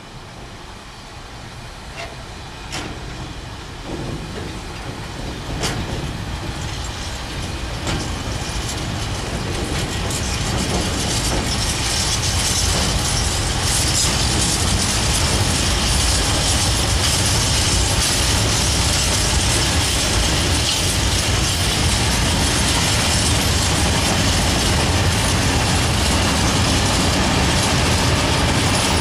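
Freight train of open-top wagons rolling past, wheels clicking over rail joints. The rolling noise grows steadily louder over the first half, then holds steady.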